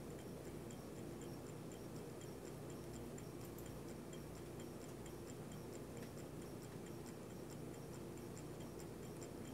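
Ultra-low-temperature Stirling engine ticking faintly and evenly as it runs, its flywheel turning on the heat of a cup of hot water.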